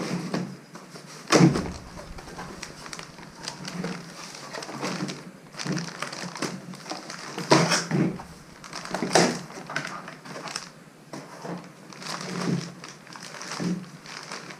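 Cardboard box and packing material handled while the silencer is unpacked: rustling and crinkling with irregular knocks and bumps, the loudest about a second and a half in and again past the middle.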